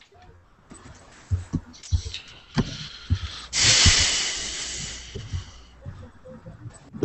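Scattered soft thumps and clicks over open video-call microphones, then, about three and a half seconds in, a sudden loud hiss that fades away over about two seconds.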